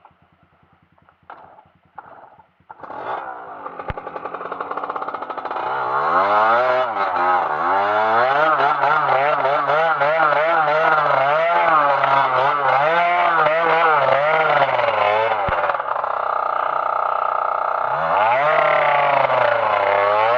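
Trail motorcycle engine revving. It comes in about three seconds in, and from about six seconds on its pitch rises and falls in quick repeated surges of the throttle.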